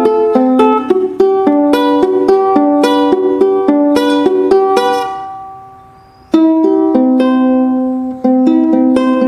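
Kadence pineapple ukulele strummed in a steady rhythm of chords. About five seconds in, the strumming stops and the last chord rings away. A second later the strumming starts again.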